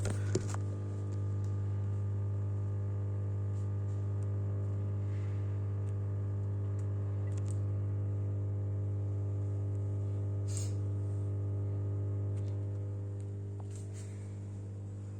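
Midea dishwasher starting its cycle, its pump motor running with a steady low hum that eases down slightly near the end, with a few faint clicks.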